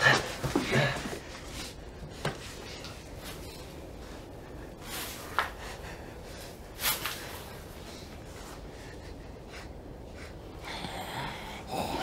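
A few short, sharp sniffs and gasps of breath over a quiet room.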